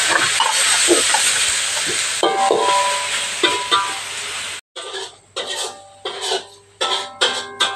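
Shredded leafy greens sizzling as they are stir-fried in a wok, with a metal spatula scraping and clicking against the pan. About four and a half seconds in the sizzle cuts off abruptly and plucked-string background music follows, note by note.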